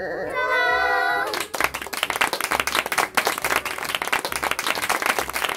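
A drawn-out voiced exclamation, then a group of people clapping in applause from about a second and a half in, with the claps dense and irregular.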